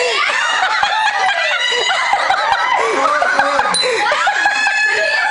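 A group of people laughing and shrieking together, many voices overlapping in a continuous loud din, with some shouted words mixed in.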